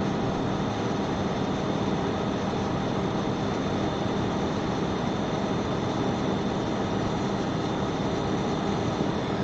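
Hot-air rework station blowing steadily on a circuit board, an even rushing of air with a faint hum, while it heats the solder under a surface-mount resistor to remelt it.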